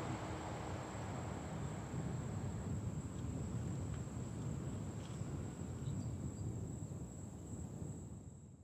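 Crickets trilling in one steady high-pitched drone over a low outdoor rumble, the whole fading out at the end.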